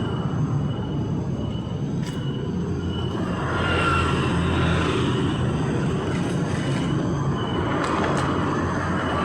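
Street traffic: a steady rumble of passing vehicles, swelling about four to five seconds in.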